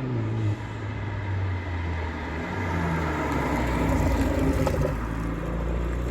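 BMW Z4 E89 2.0i's turbocharged four-cylinder running through a silencer-delete dual exhaust. Its note drops in pitch in the first second, then holds steady, swelling a little towards the middle before easing back.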